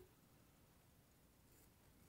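Near silence, with faint sounds of a razor blade trimming spun deer hair: a short click at the start and a soft cut about one and a half seconds in.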